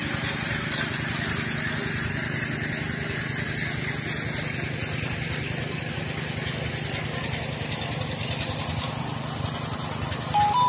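A small engine running steadily at an even speed, a constant low drone.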